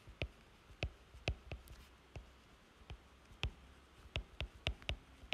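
Stylus tip tapping and clicking on a tablet's glass screen while handwriting a word: about a dozen sharp, irregularly spaced taps as the letter strokes begin and end.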